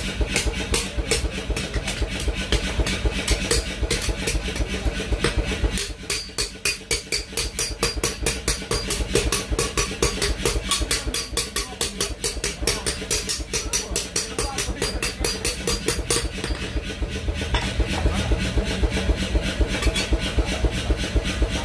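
Rapid, regular hammer blows on metal at a forge, several a second, over a steady machine hum. The blows soften about six seconds in and come harder again near sixteen seconds.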